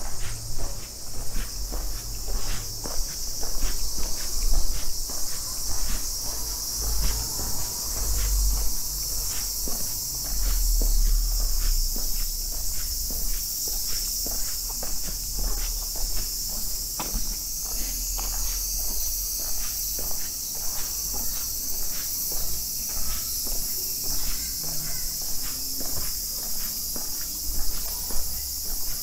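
Footsteps on an asphalt street, about two steps a second, over a steady high chorus of insects, with a low rumble underneath.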